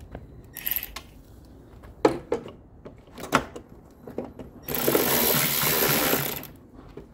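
Cordless power driver running steadily for about two seconds near the end, tightening a hose clamp on a coolant hose. Before it come a few sharp clicks and knocks of the clamp and parts being handled.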